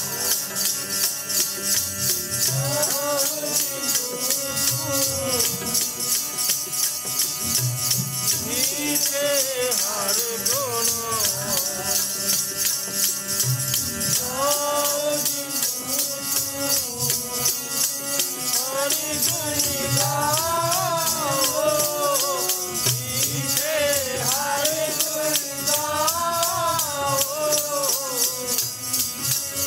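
Devotional kirtan music: a voice sings a wavering melody over a fast, steady jingling rhythm from a hand percussion instrument.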